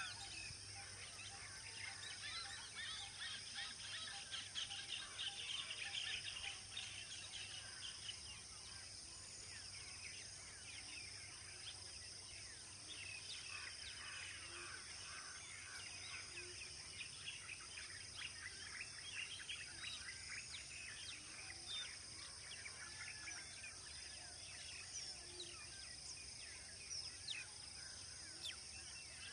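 Faint chorus of many small birds chirping and whistling, over a steady high hiss and a low hum.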